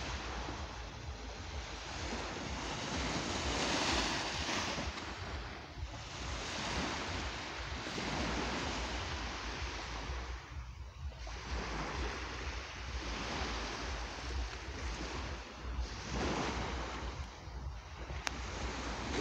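Small waves breaking gently and washing up the shore, the surf swelling and fading every few seconds.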